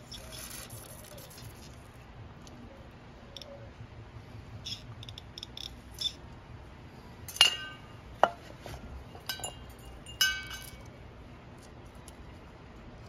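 The tail of a carburetor-cleaner spray hiss, then a few sharp hard clinks with a brief ring, the loudest about seven and a half, eight and ten seconds in, as small carburetor parts and the spray can are handled.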